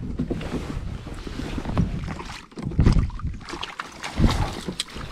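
Wind on the microphone and water sloshing around a fishing kayak, with a few dull knocks and splashes, the loudest about three seconds in, as a hooked bass is fought and brought to the boat.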